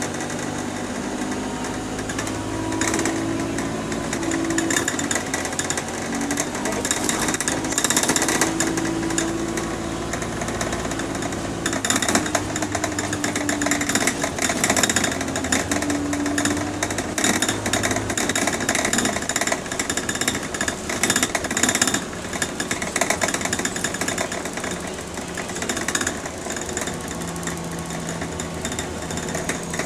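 Inside a moving London bus: the engine and drivetrain note rises and falls in pitch as it pulls away and changes gear, with heavy, continuous rattling of the interior fittings and panels.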